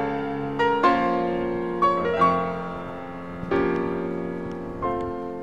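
Background piano music: struck notes and chords, each fading away before the next is played, roughly one a second.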